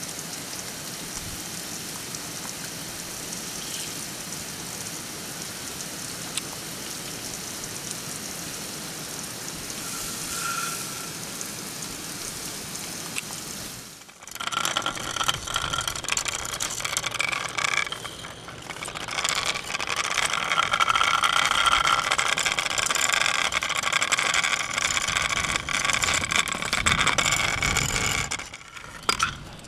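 Water spray hitting a lit LED off-road light: a steady hiss of spray, then, after a short break about fourteen seconds in, a louder, rougher spattering of water on the light that stops near the end.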